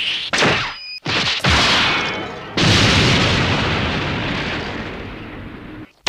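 Designed anime sound effects: a few short swept bursts, then, about two and a half seconds in, a big explosion-like boom that slowly fades over some three seconds before cutting off.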